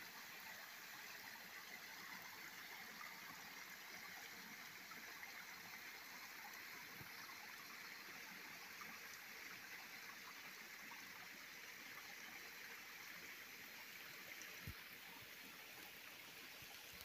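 Faint, steady trickling of a small rocky creek spilling over a low stone ledge, with one soft knock near the end.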